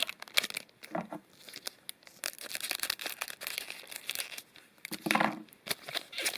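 Foil Magic: The Gathering booster pack wrapper being torn open and crinkled: a run of irregular crackling and rustling, with a louder burst about five seconds in.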